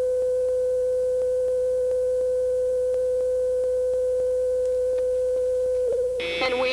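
Steady electronic test tone, one unwavering pitch around 500 Hz, held at an even level. It breaks off about six seconds in, giving way to a brief jumble of other sound.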